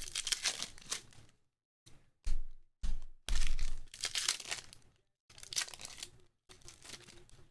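Foil basketball-card pack being torn open and crinkled by hand: a string of crackly, rustling bursts with short silent gaps between them.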